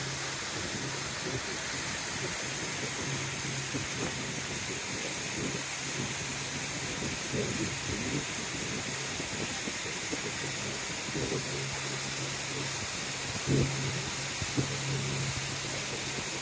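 Shuttle boat under way on a lake: a steady rushing hiss of wind and water, with the boat's motor humming low underneath, now stronger, now weaker.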